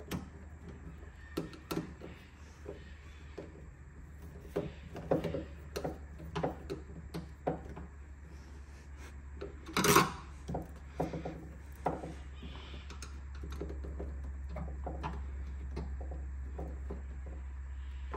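Hand screwdriver working a screw into a car's rear body panel: scattered small clicks and scrapes, with one louder knock about ten seconds in. A steady low hum runs underneath.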